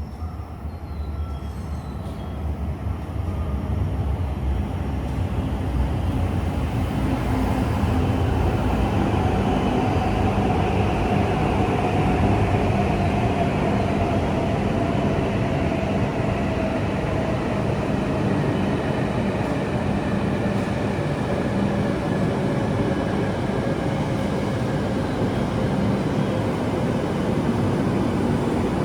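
Shinkansen train running: rumble and rail noise build over the first few seconds and then hold steady, with a faint whine slowly falling in pitch.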